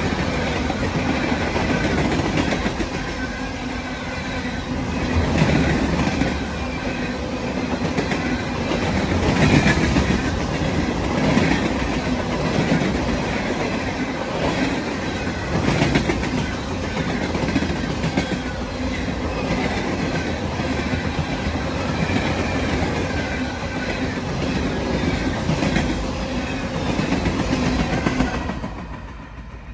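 Coal train freight cars rolling past at full speed, steel wheels clattering over the rail joints in a steady repeating rhythm under a continuous rumble. The sound fades away near the end.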